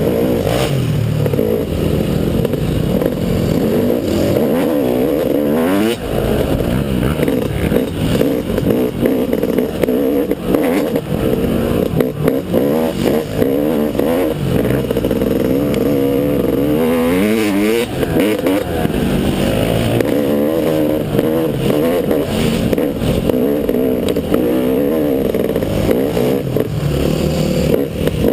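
Motocross bike engines running hard and revving, rising and falling in pitch again and again as the bikes accelerate and back off.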